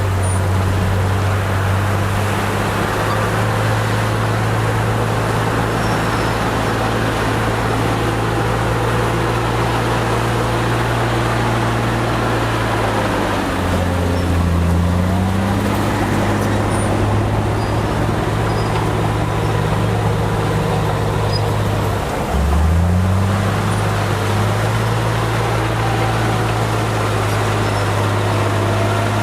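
Crawler bulldozer's diesel engine running steadily. Its pitch drops and climbs back twice, about halfway and again about three-quarters in.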